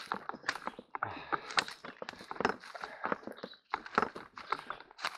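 Footsteps on a forest trail, leaf litter and twigs crunching underfoot at an uneven walking pace, with brush rustling past.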